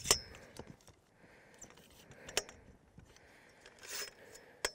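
Clicks and knocks of a spotting-scope tripod being handled as its legs are set: a sharp click at the start, another about halfway and one at the end, with fainter ticks between, over a faint rushing background.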